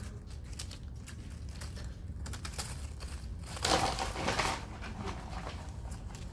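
Paper being handled close by, crinkling and rustling in short crackles, with a louder stretch of rustling for about a second midway.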